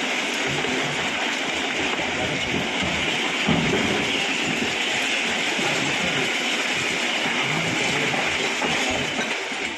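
Demolition bulldozer working, a steady mechanical clatter without pause.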